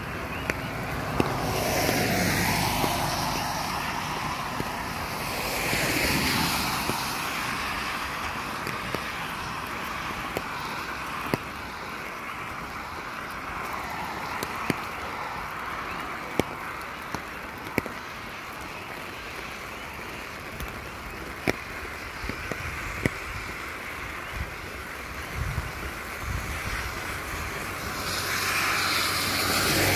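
Steady rain on a wet road, with cars passing and their tyres hissing through the water. The hiss swells up about two seconds in, again around six seconds, and near the end, over scattered sharp ticks.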